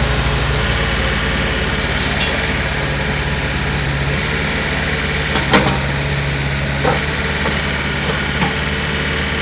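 Terex TC75 compact excavator's diesel engine idling steadily. Two short hisses come in the first two seconds, and a few sharp knocks or clanks come in the second half.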